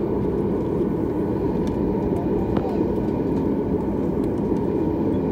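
Steady low rumble inside the cabin of a Boeing 737 airliner: its jet engines at low taxi power as it rolls onto the runway. The level stays even, with no spool-up for takeoff.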